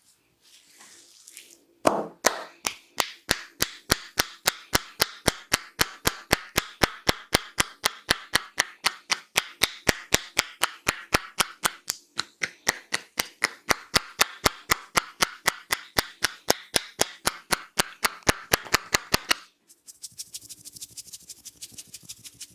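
Hands striking in a fast, even rhythm of about four sharp claps a second: Indian head massage percussion, the masseur's hands slapping the head. It starts about two seconds in, breaks briefly midway and stops a few seconds before the end.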